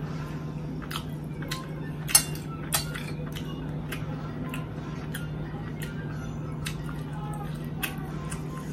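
Metal spoon clinking and scraping against a plate as a patty is cut and rice scooped, with a run of sharp clinks; the loudest comes about two seconds in. A steady low hum runs underneath.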